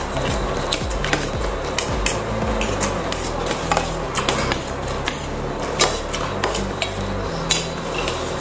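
Forks and spoons clinking and scraping on stainless steel plates as two people eat noodles, with many short, sharp clicks throughout over a low steady drone.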